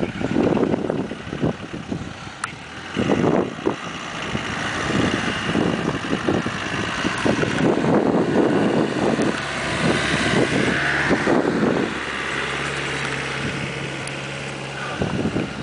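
Off-road vehicle engine running while driving over rough ground, with irregular surges and buffeting and a steadier engine tone in the last few seconds.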